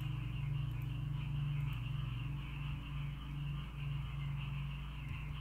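Steady low hum with a fainter steady hiss above it: background room and recording noise, with no distinct events.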